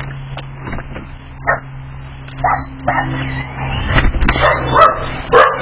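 A dog giving a few short, sharp barks over a low steady hum.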